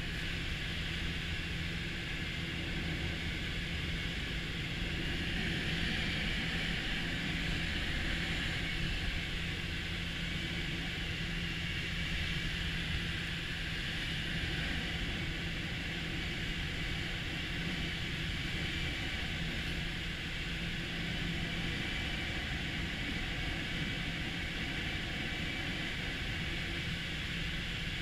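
Steady rush of airflow around a glider's cockpit canopy during an aerotow, with the tug aeroplane's engine ahead as a constant low drone.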